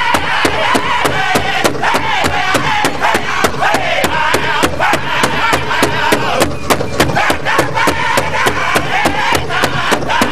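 Northern-style powwow drum group singing together in high-pitched voices over the big drum, struck with a fast, steady, even beat.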